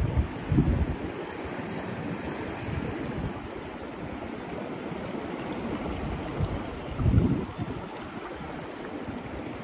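Sea surf washing steadily on a rocky shore, with wind buffeting the microphone. Two louder low rumbles come about half a second in and again around seven seconds.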